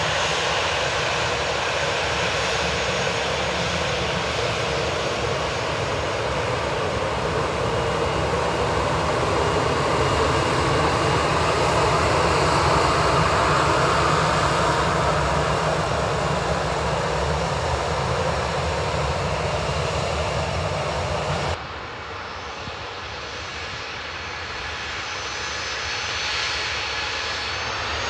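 Jet engines of a Boeing 737-800 (CFM56-7B turbofans) running as the airliner taxis past, a steady whine over a rumble. About 21 seconds in the sound cuts to a quieter, more distant hum, and near the end a rising whine begins as the engines spool up for the takeoff run.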